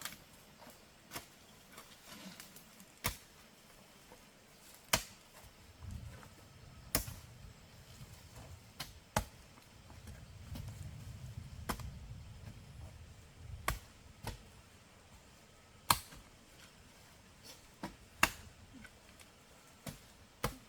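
Sharp chopping strikes of a hand tool biting into wood, about one every two seconds, with a faint low rumble underneath in the middle.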